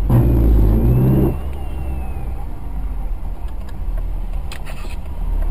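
Car engine and traffic rumble heard from inside a car cabin: a low engine note, louder for the first second or so, then settling into a steady low rumble.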